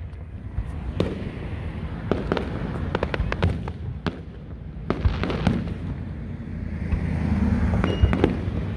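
Aerial fireworks display: shells bursting in a rapid, irregular series of sharp bangs over a steady low rumble.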